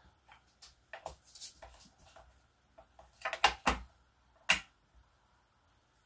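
Light tapping and clacking as a stamp on a stamping block is inked from an ink pad and pressed onto card. The run of small taps gives way to a few sharper knocks a little past halfway, then one more about a second later.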